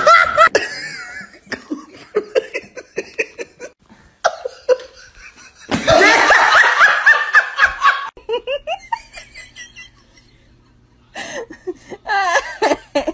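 People laughing in several bursts with short pauses between them. The longest and loudest burst comes about six to eight seconds in.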